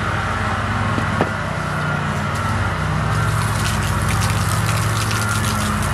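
Pressure washer running steadily with its pump free-flowing, water rushing and spattering from the hose; the spattering grows louder from about halfway through. A short click about a second in.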